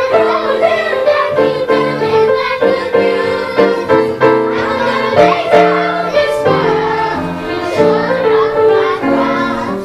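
Children's choir singing together in held notes that change every second or so.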